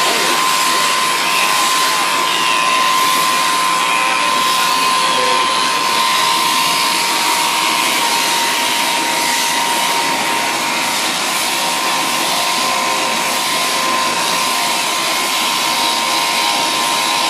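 Sheep-shearing handpiece on an overhead-drive down tube, running steadily as it cuts through a sheep's fleece. It makes an even whirring buzz with a constant tone in it.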